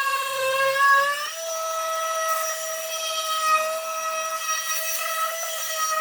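Electric power tool motor whining steadily at a high pitch. Its pitch dips slightly, then steps up about a second in and holds, as the load on the tool changes.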